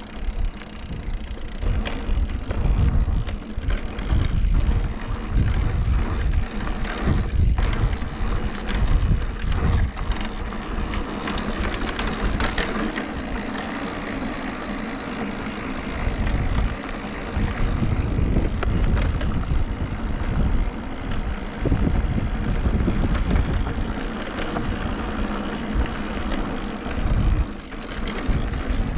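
Mountain bike ride on a dirt trail: wind buffeting the microphone over the steady noise of tyres rolling, with scattered rattles and clicks from the bike.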